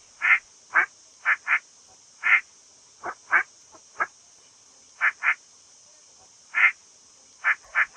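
A duck quacking: about a dozen short quacks, some in quick pairs, at irregular intervals over a steady high hiss.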